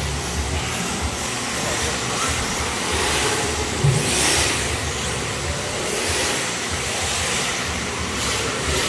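Electric RC drift cars running on a smooth indoor track, a steady motor whine and tyre hiss as they slide. About four seconds in there is a short thump and a brief louder rush as a car passes close.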